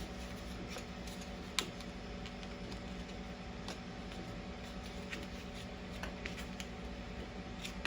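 Microwave oven running with a steady hum, with scattered light clicks and taps of food being handled and one sharper click about a second and a half in.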